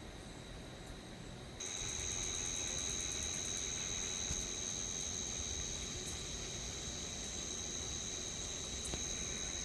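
Chorus of night insects buzzing steadily in a high, finely pulsing drone that comes in suddenly about a second and a half in; the person filming takes them for cicadas.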